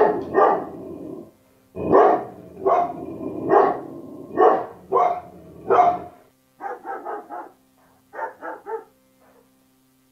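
A dog barking over and over: a string of loud, full barks, then two quicker runs of about four quieter barks each in the last third.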